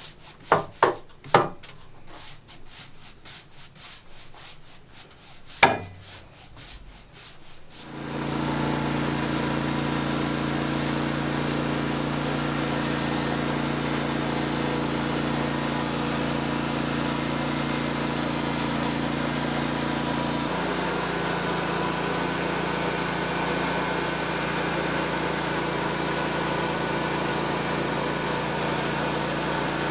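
A few sharp knocks and brushing on wood at first. About eight seconds in, a Norwood portable band sawmill comes in abruptly and runs steadily, its band blade cutting a poplar log into floor-joist boards. The engine tone shifts slightly about twenty seconds in.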